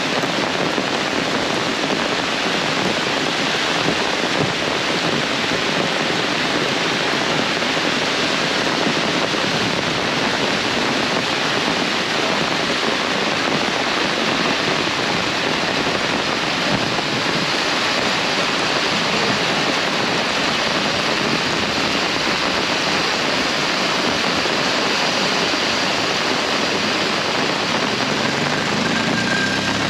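Heavy rain pouring down, a dense, steady hiss. Near the end the low hum of a vehicle engine starts to rise.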